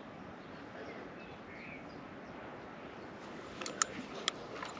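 Quiet shoreline background with a few faint bird calls, then several sharp clicks near the end as the spinning rod and reel are picked up and handled.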